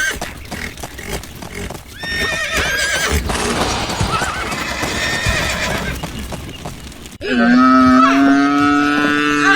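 Farm animal calls: a few short, high calls about two seconds in, then a long, loud cow moo starting about seven seconds in.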